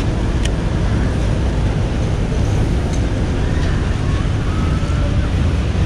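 Steady low outdoor rumble of wind on the microphone mixed with city traffic, with a faint click about half a second in.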